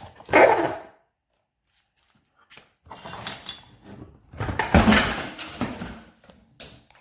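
A dog barking: one bark near the start, then a longer run of irregular barks from about three to six and a half seconds.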